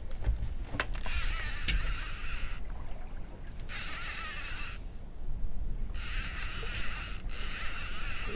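Fishing reel being cranked in three bursts, each of a second or more, with short pauses between as the rod is lifted, bringing in a fish that has taken the bait.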